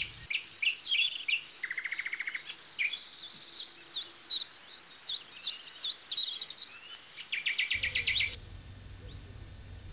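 Songbirds singing: a short rapid trill, then a run of repeated downslurred whistled notes, then another fast trill. A little before the end the birdsong stops and only a low, steady background noise remains.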